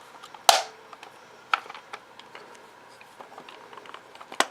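Hard plastic parts of a Buzz Lightyear action figure clicking and knocking as they are handled and fitted together: one sharp click about half a second in, then lighter clicks and ticks.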